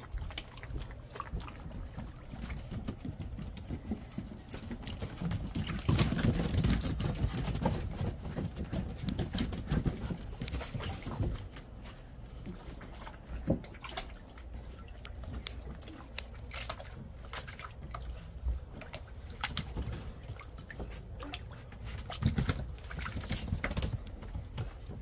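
Water splashing and sloshing in a shallow plastic kiddie pool as golden retriever puppies step and paddle in it, with scattered clicks of paws on wooden decking. The splashing is louder for a few seconds about a quarter of the way in.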